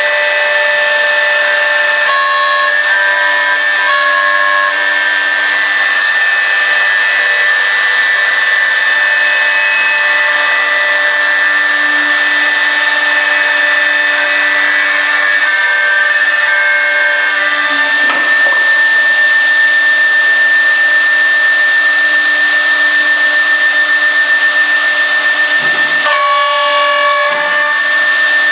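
CNC router spindle running steadily with a high whine as it cuts wood, its tones shifting as the tool moves, with a brief wavering change in pitch near the end.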